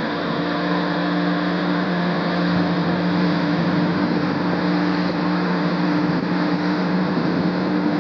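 Outboard motor running steadily at cruising speed, driving a small boat along, with the rush of water from the wake.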